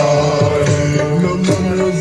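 A Sindhi song playing, in a stretch without clear singing: gliding melodic lines over a steady held note, with regular drum strokes.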